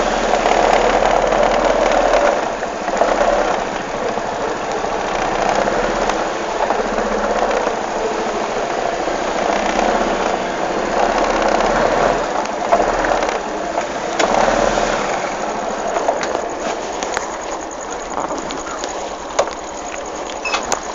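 A vehicle engine running steadily, under a rushing noise that swells and eases every few seconds.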